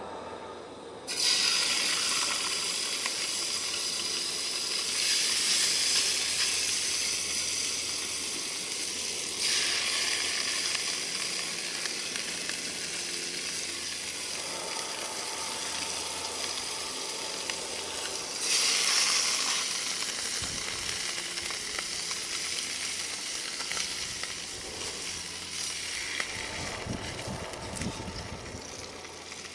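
Food sizzling in a hot frying pan. It starts suddenly about a second in, as if food had been put into the pan, flares up again a few times and slowly dies down.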